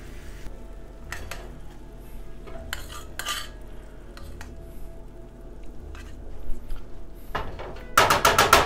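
Metal utensil clinking and scraping against a stainless steel frying pan, in scattered strokes with a quick run of clinks near the end.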